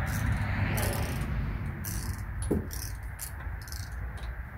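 Torque wrench ratcheting on a wheel's lug nuts, in short irregular bursts of clicking. There is a single knock about halfway through.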